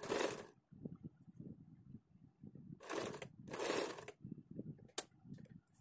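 Cloth rustling in three short bursts as the blouse fabric is handled and smoothed under a sewing machine's presser foot, with one sharp click about five seconds in.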